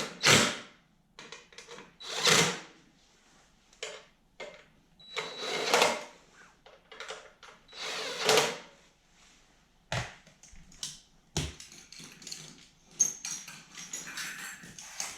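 Several short runs of a power drill, each about a second long, then two sharp knocks and lighter clattering of tools and parts near the end.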